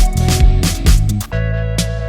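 Background music with a beat: drum hits several times a second over bass and synthesizer chords, which give way to a long held bass chord about halfway through.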